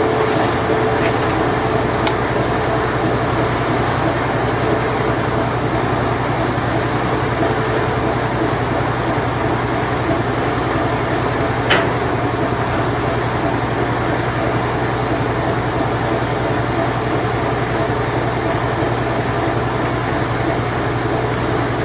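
A late-1980s Whirlpool Imperial Clean Touch washing machine running steadily, a constant low motor hum under an even mechanical noise, with a single sharp click about twelve seconds in.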